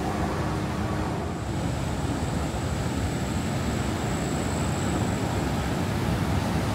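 Steady rushing of the Niagara River's upper rapids, a broad low rush of fast whitewater.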